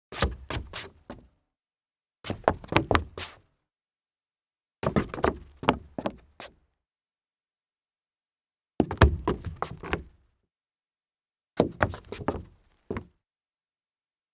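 Leather-soled dress shoes stumbling on a wooden floor: six separate flurries of quick, uneven heel and sole knocks with low thuds, each lasting about a second, separated by silent gaps.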